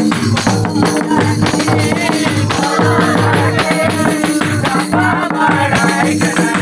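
Live group singing of a Christmas song over drums and percussion keeping a steady, repeating beat.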